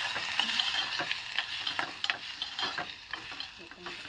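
Chopped tomatoes and tamarind sizzling as they fry in oil in a metal pot. A steel spoon stirs them, with repeated clicks and scrapes against the pot. The sizzle is strongest at the start and eases off near the end.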